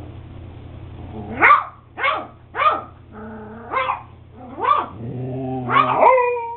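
Beagle puppy barking at play: about five short, high yapping barks, then a longer drawn-out bark with a low growl under it near the end.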